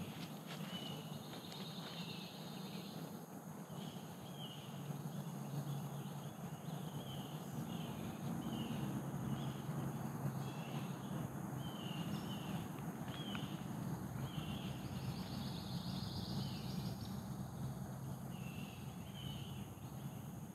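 Birds calling outdoors, short high chirps repeating about once a second, over a steady low background hum.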